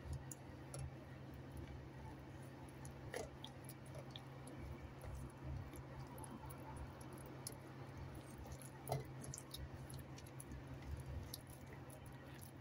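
Faint wet squishing and soft clicks of raw chicken pieces being turned by hand in egg and flour in a stainless steel bowl, with a couple of sharper clicks along the way.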